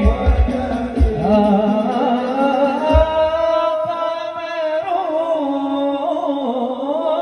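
A group of men sings a sholawat, an Islamic devotional song, through a PA, in a melismatic chant with frame-drum beats in the first few seconds. The drums stop after about three seconds and the voices carry on alone.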